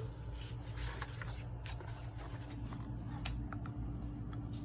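Paper rubbing and scratching with a few light ticks as a picture book's page is handled and turned.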